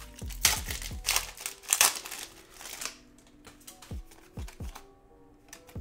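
Foil wrapper of a Pokémon booster pack crinkling as it is handled, in sharp crackles during the first three seconds, over background music.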